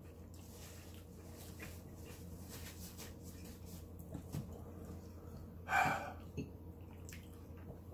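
A man breathing hard and sniffing through the burn of habanero hot sauce, with one louder huff of breath about six seconds in. A faint steady low hum runs underneath.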